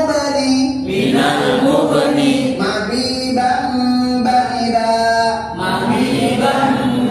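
Many voices chanting a recitation together in unison, with drawn-out held syllables.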